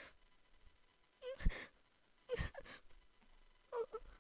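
A young man's voice crying without words: three short, breathy, quavering sobs with sharp gasping inhales, overcome with emotion.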